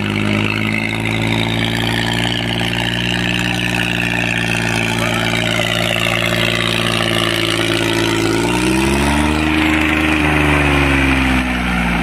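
Mahindra 265 DI tractor's three-cylinder diesel engine running steadily while pulling a harrow through tilled soil. Its note rises about eight or nine seconds in, then falls back toward the end.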